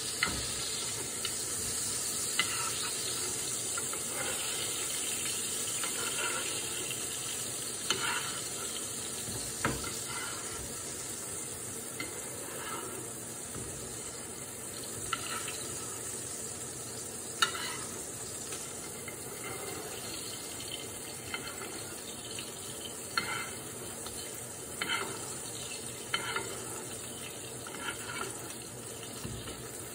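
A hamburger patty frying in a skillet with a steady sizzle, while a spoon scrapes and taps in the pan every second or two.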